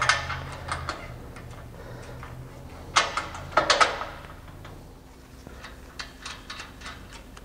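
Steel rod end of a rear suspension stiffener bar clicking and knocking against the steel chassis mounting tabs as the bar is twisted to line up the bolt holes. A few sharp metallic clicks at the start, a louder pair about three to four seconds in, then lighter ticks near the end.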